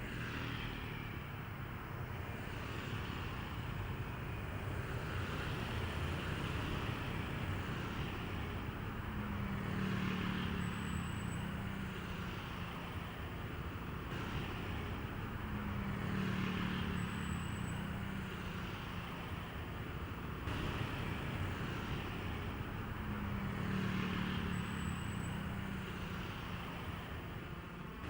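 Steady road traffic noise with a vehicle passing by about every seven seconds.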